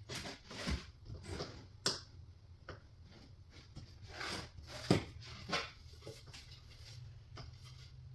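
Scattered light knocks, clicks and rustling from handling flat-pack cabinet parts and pegs, with sharper knocks about two and five seconds in.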